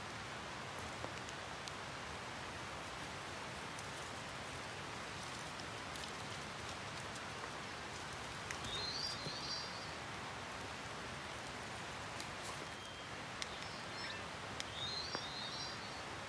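Steady rain falling, with a few light drip-like ticks. A bird gives two short chirping phrases, about 9 and 15 seconds in.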